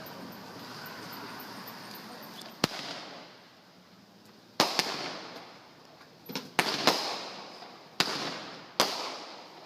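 Fireworks going off: a string of about eight sharp bangs at uneven intervals, starting a few seconds in, each trailing off in a short echo.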